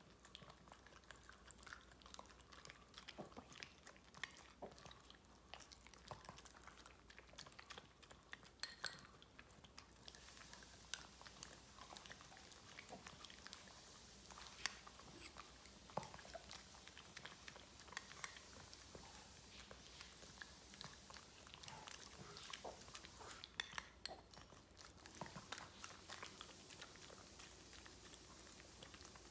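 Shih tzus licking and chewing soft food off a spoon, with faint irregular smacks and clicks, and the spoon now and then tapping or scraping the bowl.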